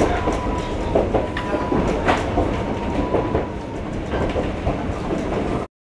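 Former Tokyo Metro Ginza Line electric railcar running over jointed single track, heard from inside the front car: a steady rumble with the clickety-clack of wheels over rail joints and a thin steady whine for the first few seconds. The sound cuts out abruptly near the end.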